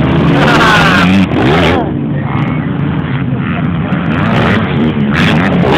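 Motocross motorcycle engines revving hard as bikes race on the track, their pitch rising and falling as they accelerate and go past.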